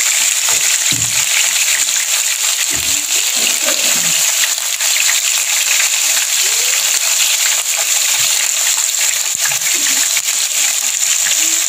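Small birds sizzling in oil and sauce in a frying pan, a steady hiss, as they are stirred and turned with chopsticks.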